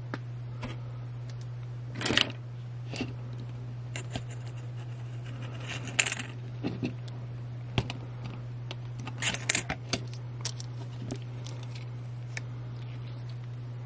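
Small metal clicks and clinks, scattered irregularly, from flush cutters snipping and handling the nickel strips that join a pack of 18650 lithium-ion cells, over a steady low hum.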